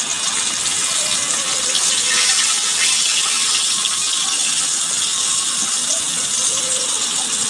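Cooking oil sizzling and crackling steadily in a frying pan.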